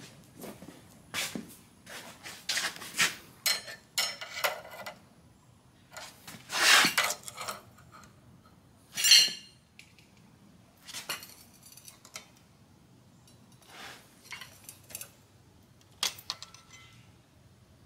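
Pieces of scrap steel clanking and scraping as they are shifted about in a bucket and pile of bar stock, in irregular clinks with a few louder ringing clanks about midway.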